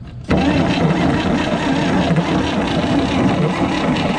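Starter motor cranking the 1957 Chevy truck's inline-six engine over at a steady pace, turning it freely without it firing. It starts abruptly about a third of a second in.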